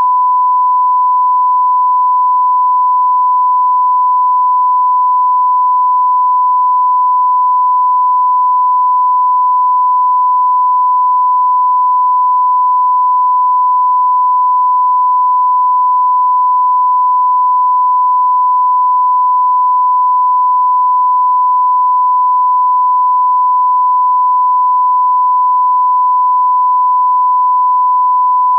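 Continuous 1 kHz sine-wave test tone, one pure pitch held steady at constant level: the line-up tone that goes with a television test card.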